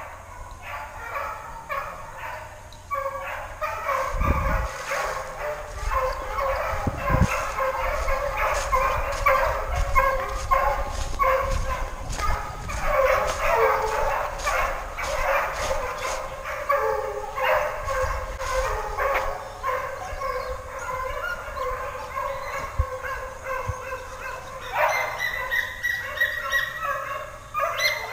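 A pack of hunting hounds baying in chorus, many voices overlapping continuously: the cry of hounds running a wild boar.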